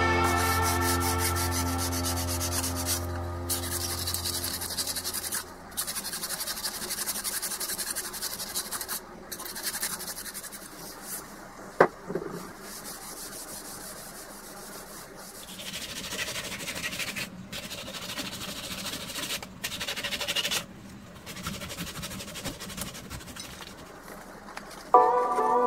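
Background music fades out over the first few seconds. Then a hand file rasps along the steel blade of an old Nooitgedagt chisel clamped in a vise, in runs of quick strokes broken by short pauses. There is one sharp tick about twelve seconds in, and music comes back right at the end.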